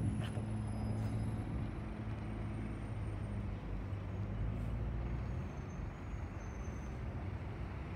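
A car engine idling nearby: a steady low hum with no revving, over open-air background noise.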